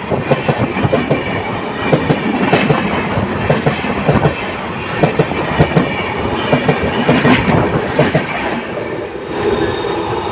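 Passenger train running past on Indian Railways track, its coach wheels clattering in a fast, irregular run of clicks over rail joints and points.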